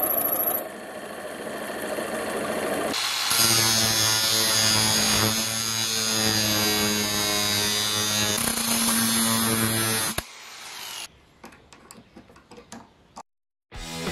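Angle grinder with a cutting disc cutting through a small steel plate, a loud steady whine lasting about seven seconds that stops suddenly, followed by a few faint clicks.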